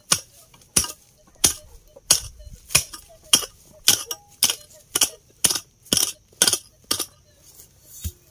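A metal digging tool striking into the ground over a metal-detector signal, about thirteen sharp strikes at roughly two a second, a little faster towards the end, stopping about a second before the end.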